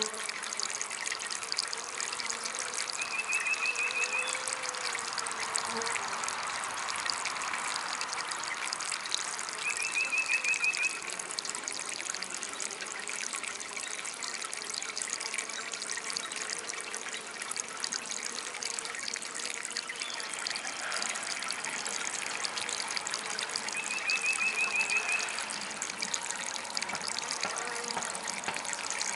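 Small DIY water fountain trickling and splashing steadily. A short, rapid high trill sounds three times over it.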